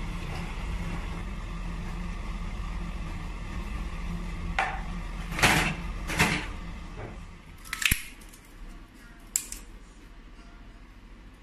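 About five short rustling and clicking handling sounds in the middle of the clip, the loudest about halfway through and a sharp click a little later, over a steady low background hum that fades out partway through.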